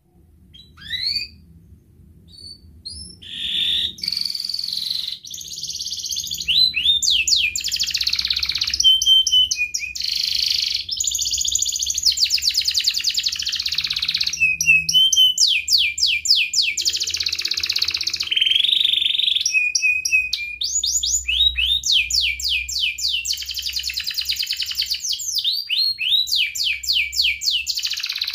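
Domestic canary singing: a few short rising chirps, then from about four seconds in a continuous song of fast rolling trills and rapid runs of rising notes.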